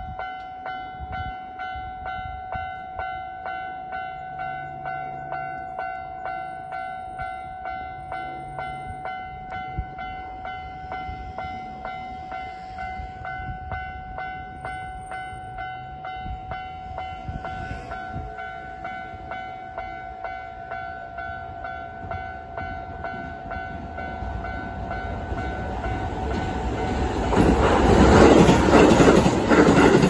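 Level-crossing warning bell ringing steadily, about two strikes a second. Near the end a Keisei 3000 series electric train comes up and passes over the crossing, its wheels clattering on the rails and drowning out the bell.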